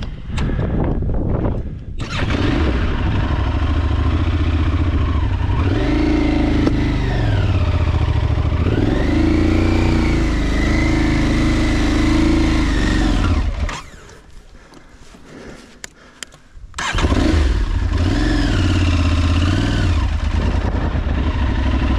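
Aprilia adventure motorcycle's engine pulling through sand, the revs rising and falling with the throttle. About fourteen seconds in it drops much quieter for some three seconds, then comes back in suddenly and loudly with the revs climbing and falling again.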